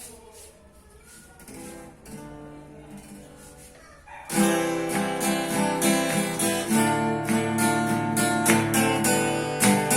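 Acoustic guitar: a few soft notes at first, then strummed chords start loudly about four seconds in, as the song's introduction.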